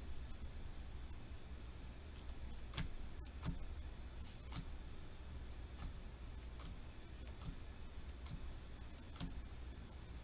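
Pokémon trading cards being handled and flipped through by hand: faint, scattered clicks and snaps of card edges, several over the seconds, over a low steady hum.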